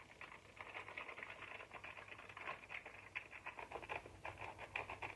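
Faint, quick, irregular scratching and ticking of a kitchen utensil working through dry flour mix in a bowl.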